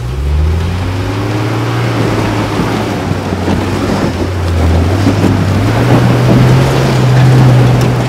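Stock Nissan Patrol ute's engine pulling under load as it climbs a steep, rocky dirt slope. The revs rise at the start, hold steady, then climb and get louder again about halfway through before easing off at the end.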